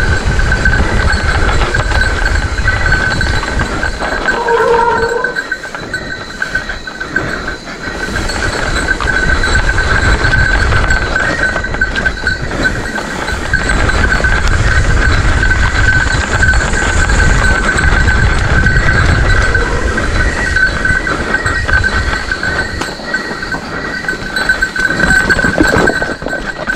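Mountain bike rolling fast over a rough dirt trail: a loud rumble of wind and rattling from the bike and its handlebar camera mount, easing off briefly a few seconds in. A steady high-pitched tone runs behind it, and a short pitched squeal comes about five seconds in.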